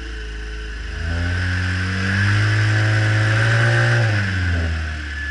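Baotian scooter engine idling, then revving up about a second in, held at higher revs for a couple of seconds, and dropping back to idle shortly before the end: a test run on a newly fitted variator belt.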